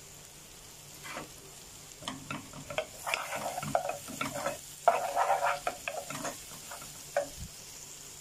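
Minced garlic sizzling in melted butter in a nonstick pot, with a wooden spoon stirring and scraping through it in bursts from about two seconds in until about six and a half seconds, and once more near the end.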